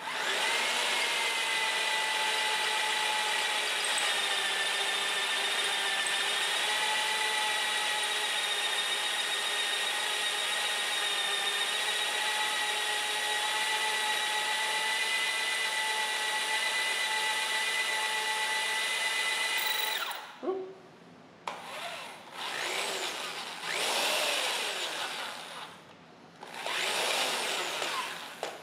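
Electric hand drill running slowly and steadily with a pitched whine, boring down through a Model T Ford engine's lifter bore into the cast-iron valve guide. After about twenty seconds it stops, and the trigger is pulsed in several short spurts that rise and fall in pitch.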